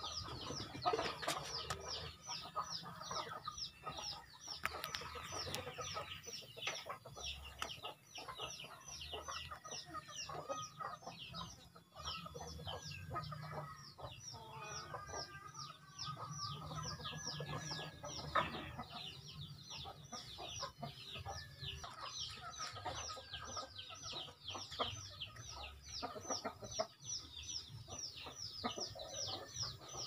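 Chickens clucking, over a fast, steady series of short high chirps falling in pitch, about three a second. A faint low hum runs underneath, from the refrigerator compressor running as an air compressor.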